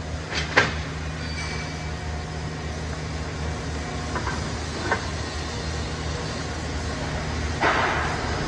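Steady low hum of workshop machinery, with a sharp metallic clink about half a second in and two lighter clinks later as a bent stainless steel pipe is handled and set into a welding jig. A short rush of noise comes near the end.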